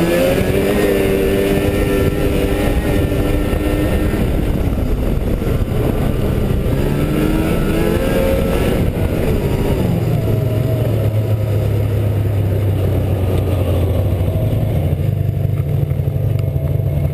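Snowmobile engine running under way, its pitch rising as the throttle opens about a second in and again around eight seconds in, then falling to a lower, steady note for the rest.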